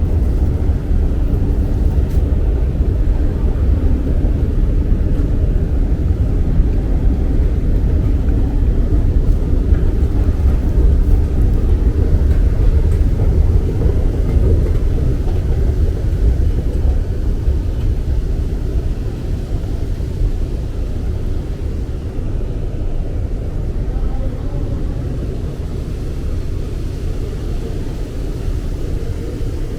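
Low, steady rumble of a Doha Metro train running, easing off in the second half.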